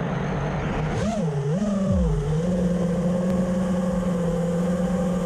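FPV quadcopter's brushless motors whining: the pitch swings up and down a couple of times with quick throttle changes about a second in, then holds steady.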